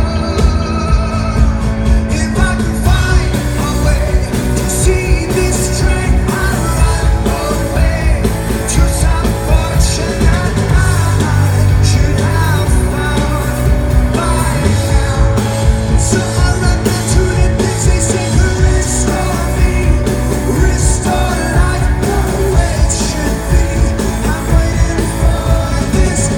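A live rock band playing loudly, with a sung lead vocal over a steady bass line and drum beat with cymbal hits.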